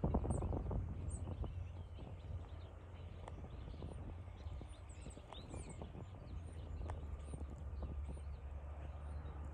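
Faint, steady low rumble of a TasRail freight train's diesel locomotives moving away in the distance, with small birds chirping over it. A brief flurry of rustling clatter comes in the first second.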